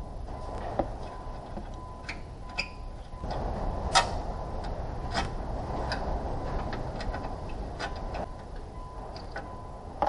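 Scattered, irregular clicks and taps of hand tools and parts being handled, the loudest about four seconds in, over a steady background hiss with a faint steady tone.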